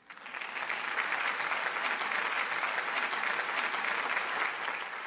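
Audience applauding, a dense patter of many hands clapping that cuts in at once and thins out near the end.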